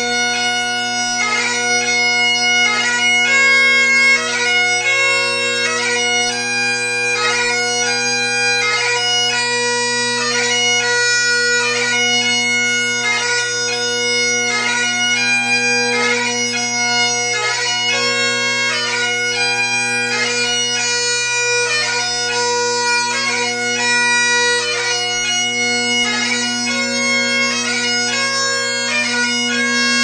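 Great Highland bagpipe playing piobaireachd: the drones hold one steady tone under a chanter melody of held notes broken by quick gracenote embellishments.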